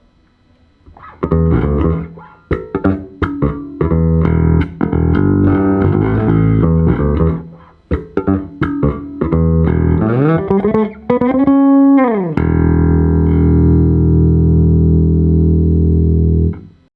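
Provision VJB electric bass played solo: a run of plucked notes and riffs, then rising slides up the neck, ending on a long sustained note that is damped off sharply near the end.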